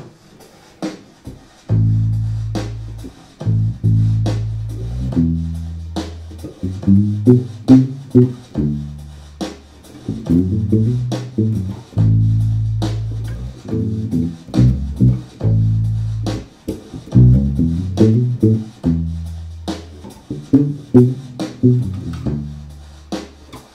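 Electric bass played through an amp with the right hand muting the strings, giving a dead, thumpy tone: a slow pop-style bass line of low notes, each with a sharp click at its attack, starting about two seconds in after a few light taps.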